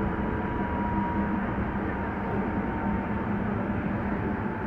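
Hankyu Kyoto Line train running along the track, heard from inside the driver's cab: a steady rumble of wheels on rails, with a faint steady whine above it.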